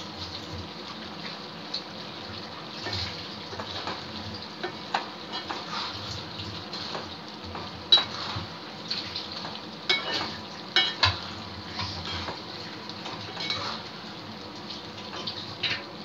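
Metal ladle stirring and scraping prawn gravy in a metal kadai, with irregular clinks and scrapes against the pan, the loudest about halfway through. Under it is a steady hiss from the gravy simmering on the gas flame.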